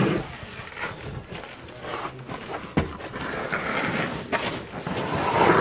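Footsteps shuffling and clothing brushing and scraping against the sandstone walls of a narrow slot canyon, with scattered knocks. The sharpest knock comes about halfway through.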